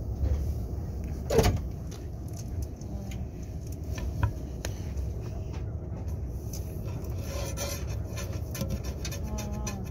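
Steady low rumble of a KTX train carriage's interior, with one sharp knock about a second and a half in and scattered small clicks and rubbing.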